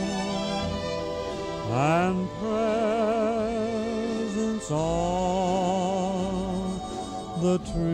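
Film score music: a slow, sustained melody with a strong wavering vibrato over a held low note, with a quick upward slide into a new note about two seconds in.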